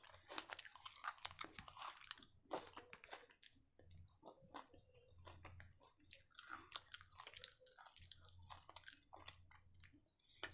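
A person chewing a crisp-fried chicken kebab drumstick close to a lapel microphone: quiet, irregular crunching and mouth clicks, densest in the first two seconds, with short pauses between bites.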